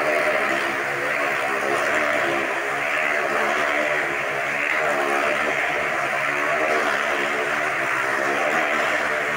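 Motorcycle engines running at high, steady revs as riders circle inside a steel-mesh globe-of-death cage, the pitch wavering up and down slightly as they loop round.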